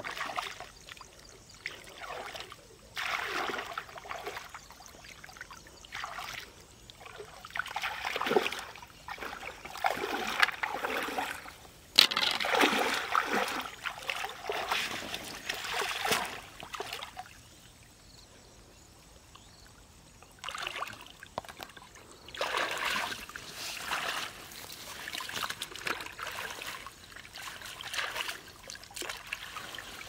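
Shallow river water splashing and sloshing as a man wading in it sweeps water with his foot toward a fine-mesh net and handles and lifts the net, water running off the mesh. The splashing comes in irregular bouts, with a lull of a few seconds past the middle.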